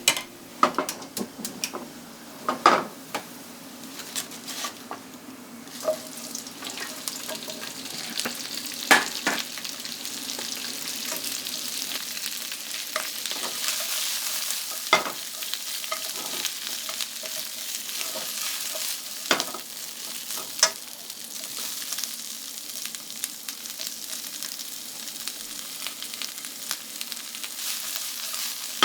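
Food sizzling in a frying pan while it is stirred, with a few sharp knocks of the utensil against the pan.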